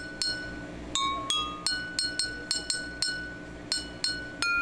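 Water-filled drinking glasses struck with a metal spoon, ringing like a water-glass xylophone. There is a quick run of about a dozen notes, mostly on one pitch with a few higher and lower ones, each glass tuned by its water level.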